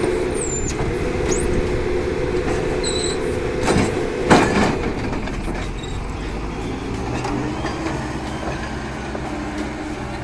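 A large engine running steadily, with two knocks about four seconds in and another at the very end.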